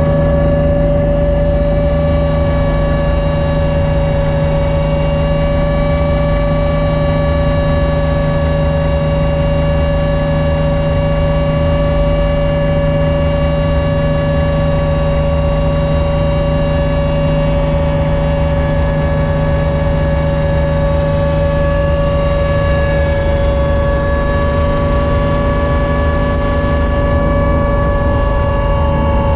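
Steady cabin noise of a Hummingbird helicopter in cruise flight, heard from inside the cabin: a constant engine and rotor drone with a steady whine on top.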